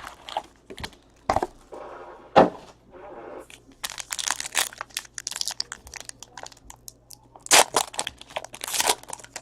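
Trading card packaging being torn open and handled: crinkling, tearing wrapper and cardboard, with sharp crackles and clicks, densest about four seconds in and again near the end.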